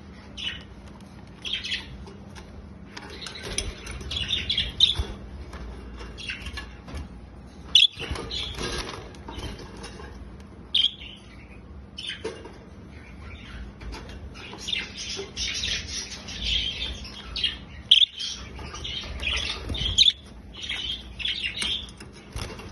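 Budgies chirping in short, busy bursts, with a few sharp knocks scattered through and a faint steady hum underneath.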